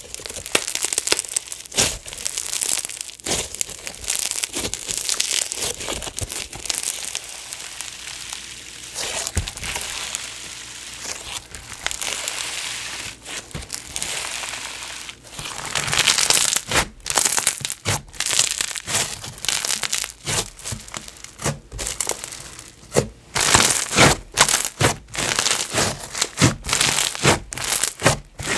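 Clear-glue snow fizz slime worked by hand, giving a continuous sizzling crackle with many sharp bubble pops. It gets busier and louder about halfway through.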